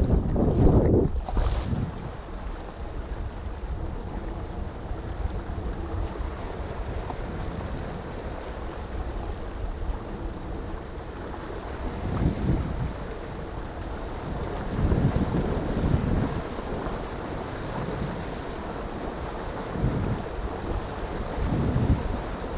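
Wind buffeting the microphone of a camera mounted on a windsurf board, with water lapping and splashing against the board as it sails slowly in light wind. Swells come every few seconds and are loudest in the first second or so.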